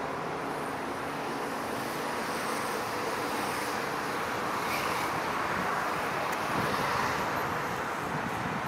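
Distant jet engine noise of an Airbus A380 on approach, a steady rushing sound that swells gently and eases near the end, mixed with wind on the microphone.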